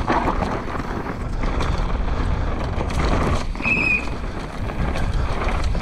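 Commencal Supreme DH 29 downhill mountain bike ridden fast down a rough, holed dirt track: steady rumble of the tyres on dirt and rattle of the bike, with knocks over the bumps and wind on the camera. A brief high squeak sounds a little past the middle.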